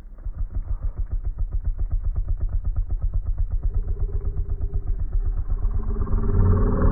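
Snow leopard purring, a rapid, even rumble that grows louder near the end.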